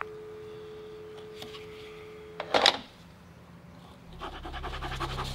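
Telephone dial tone, a steady two-note hum, runs for about two and a half seconds after the call is hung up, then stops with a short burst of noise. Music fades in near the end.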